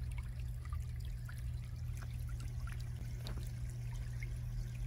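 Shallow water trickling and running over the ground, with many small splashy ticks over an even wash and a low steady hum underneath.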